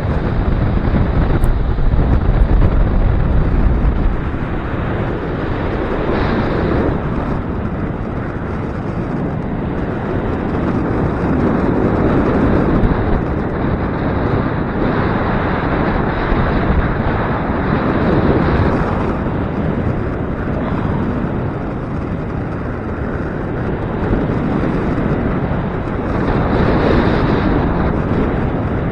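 Gusty wind buffeting the microphone: a loud rushing rumble that swells and eases with each gust, heaviest in the first few seconds.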